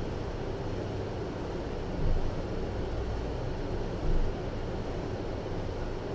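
Steady low hum and hiss of room noise on the live cam's microphone, with two brief low thumps about two and four seconds in.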